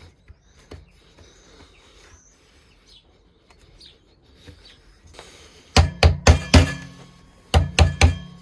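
A hammer tapping a machined plastic pulley ring onto a bicycle's bottom bracket, driving it on as a press fit. The blows come in two quick runs of about four sharp knocks each, starting about six seconds in, after some faint handling.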